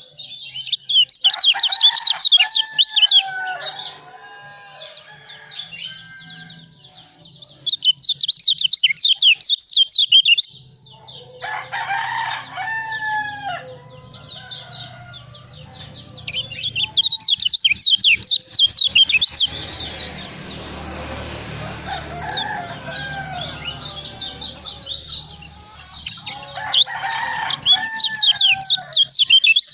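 Kecial lombok songbird singing in bursts of rapid, high chirping twitters lasting a few seconds each, with lower gliding calls mixed in during some bursts.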